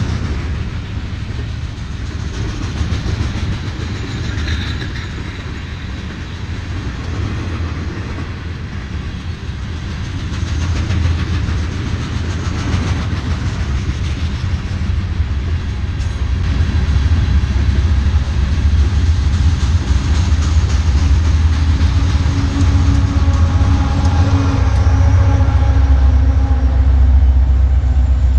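Train rolling past with a continuous low rumble and wheel clatter on the rails, growing louder a little past the middle; a few faint steady tones join in near the end.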